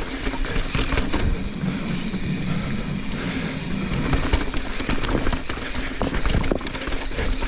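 Mountain bike being ridden fast down a dirt jump trail: a steady rush of tyres and wind with many small rattles and knocks.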